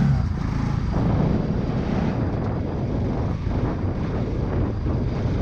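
Motorcycle engine running steadily while the bike is ridden along a rough dirt track.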